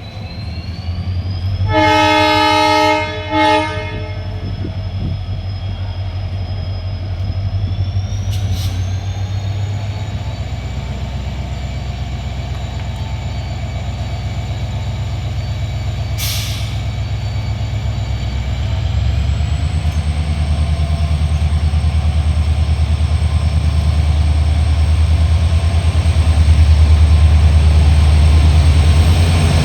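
Indian Railways diesel locomotive departing: its horn sounds about two seconds in, one long blast then a short one. Then the engine's deep hum builds steadily as it pulls away, with a whine that rises in pitch.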